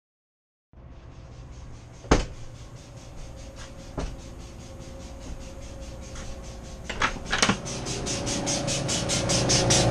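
Steady low hum with a few sharp clicks, the loudest about two seconds in, then a fast, even ticking about five times a second that starts about halfway through and grows louder.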